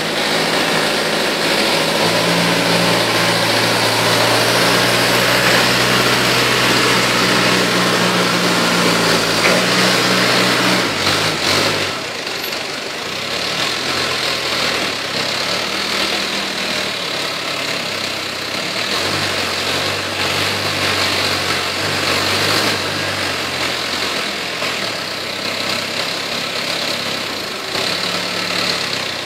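Toyota 3.5-ton forklift engine running, its pitch stepping up and down as it drives and works the bale clamp and mast. It is loudest and highest for about the first ten seconds, then drops to a lower, rising-and-falling run.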